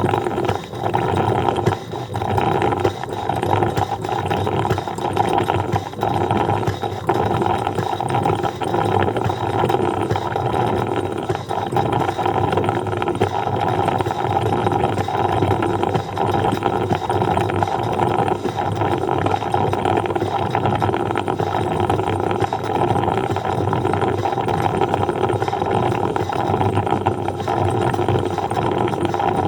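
Coffee percolator operating: a steady, dense run of small irregular pops.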